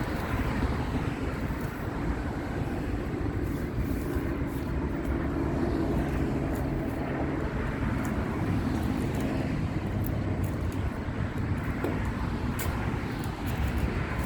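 Steady low mechanical rumble with a faint hum, and a few light clicks in the second half.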